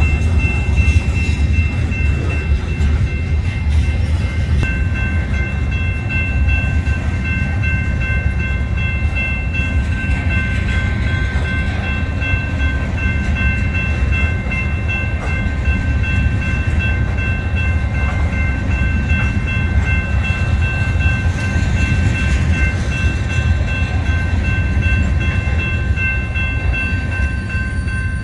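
Loaded covered hopper cars of a limestone train rolling past with a steady low rumble of wheels on rail, while the crossing warning bell rings on without a break.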